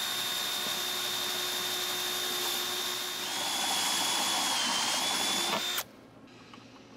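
Makita cordless drill spinning a step bit through a thin panel: a steady high whine over the grinding of the cut. About three seconds in it gets louder and the pitch dips slightly, then the drill stops abruptly near the end.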